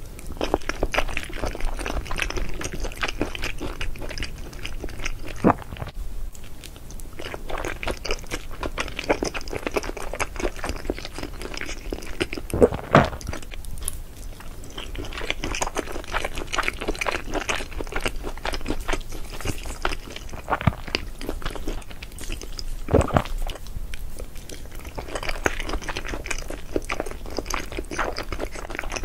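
Close-miked chewing and biting of cheese-topped baked spaghetti with sausage: continuous mouth sounds with dense small clicks, and a few sharper clicks about 5, 13 and 23 seconds in.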